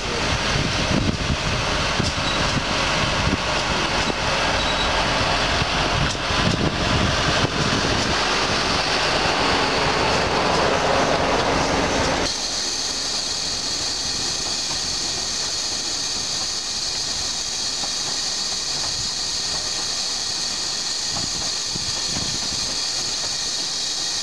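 A 15-inch-gauge train rolls slowly past on the next track, its wheels rumbling and clicking over the rail joints. About halfway through, the rumble drops away and a steady steam hiss from the standing steam locomotive takes over, with the coaches still running by underneath it.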